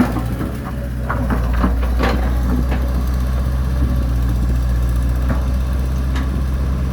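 Excavator's diesel engine running steadily at a low, even pitch, with a few short knocks in the first two seconds and a couple more later on.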